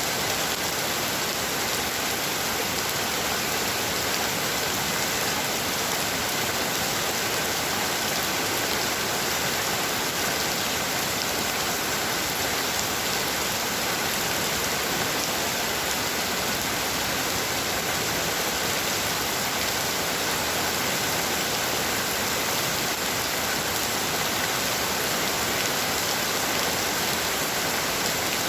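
Heavy rain falling steadily, a dense even hiss of rain on surfaces with no thunder or let-up.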